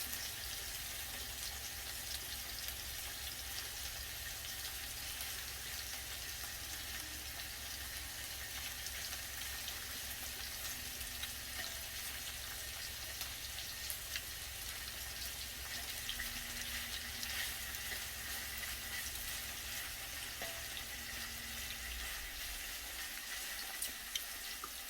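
Beef sizzling and crackling as it fries on a hot pan, a steady hiss full of small pops, with a low hum underneath that stops near the end.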